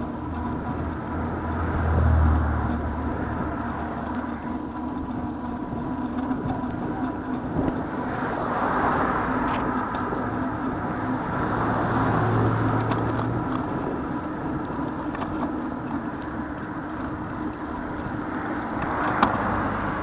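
Cars passing on the road alongside a moving bicycle: one goes by about two seconds in, with a deep rumble, and another around twelve seconds, over a steady background hum.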